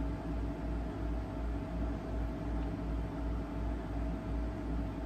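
Steady background hum and hiss of room noise, with a strong low rumble and a few faint steady tones above it. Nothing changes or stands out.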